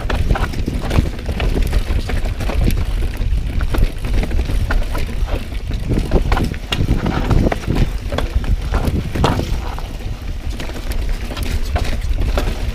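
Pivot Firebird full-suspension mountain bike clattering and rattling over rough, rocky downhill trail, with irregular sharp knocks from the wheels and frame hitting rocks and roots. A steady low rumble of wind buffets the action camera's microphone underneath.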